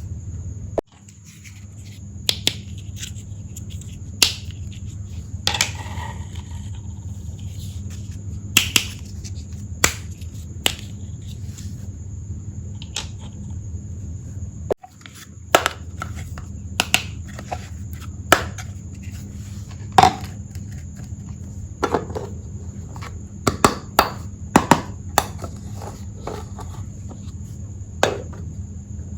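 Small plastic toy pieces from a miniature tea set clicking and tapping against each other and the table as they are handled, in irregular single taps, over a steady low hum.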